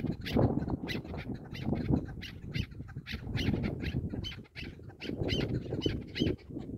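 Chukar partridges calling: a rapid series of short, harsh clucking notes, about three a second, over a low rumbling noise.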